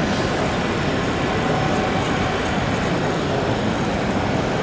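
Model train running on a layout's track over the steady background din of a crowded exhibition hall, with a few faint clicks.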